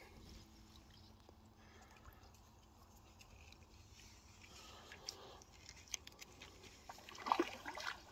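Faint rustling and small clicks as a hooked barbel is played in, then a brief cluster of splashy noise about seven seconds in as the fish swirls at the surface close to the bank.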